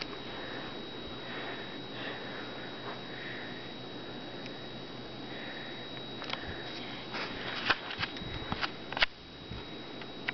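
Breathing or sniffing close to the microphone, then a run of light clicks and taps over the last few seconds, over a faint steady high whine.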